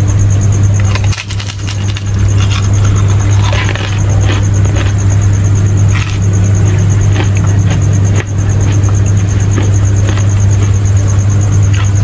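A steady low hum, the loudest sound, under a high insect trill that pulses fast and evenly, with soft clicks and smacks of chewing and eating by hand.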